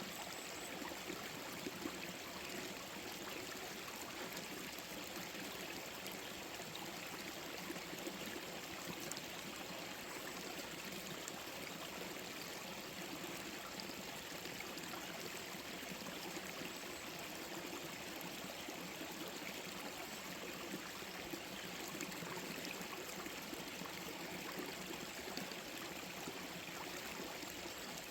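Gentle forest stream flowing, a steady, even rush of running water.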